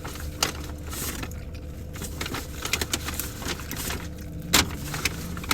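Rustling and light clicks of things being handled, with one sharper click about four and a half seconds in, over a steady low hum.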